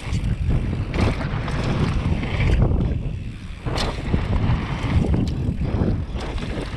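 Wind buffeting the camera microphone on a downhill mountain bike ridden fast down a dirt and gravel trail, with tyre roar and sharp rattles and knocks from the bike over the bumps.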